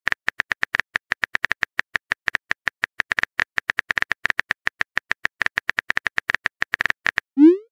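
Phone keyboard typing clicks: a rapid, even run of short taps, about eight a second, as a text message is typed out. The clicks stop just before the end, and a short rising swoosh follows, the sound of the message being sent.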